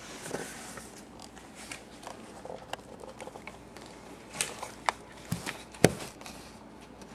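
Quiet handling noise as a cardboard shoebox is moved about: scattered small clicks, taps and rustles, with a few sharper clicks in the second half.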